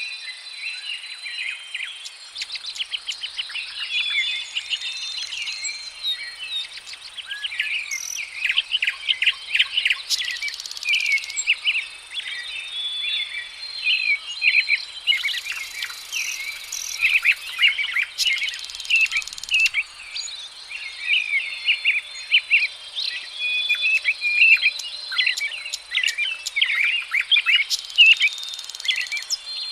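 Several songbirds chirping and twittering continuously in quick, overlapping short notes, over a steady high insect trill.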